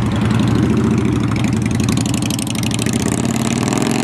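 Motorcycle engine running steadily at low revs, a loud, fast, even pulsing throb.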